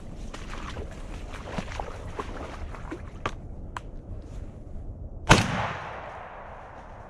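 A single shotgun shot about five seconds in, with a short echoing tail. Before it, footsteps and rustling through wet brush, with a couple of sharp snaps.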